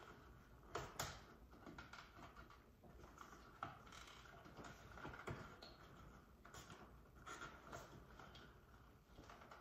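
Faint scattered clicks and small plastic taps of thermostat wires being pushed into the terminals of an Ecobee4 wall back plate by hand, with two sharper clicks about a second in.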